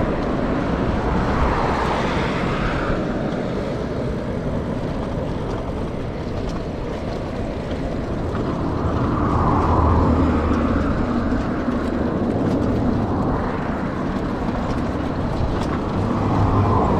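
Steady rush of wind and road noise while riding a bicycle, swelling briefly three times.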